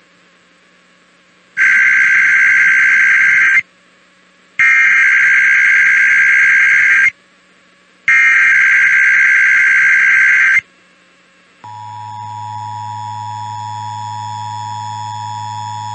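Emergency Alert System SAME header: three bursts of warbling data tones, about two seconds each and about a second apart. Then the two-tone EAS attention signal (853 and 960 Hz) comes in and holds steady, announcing a required weekly test.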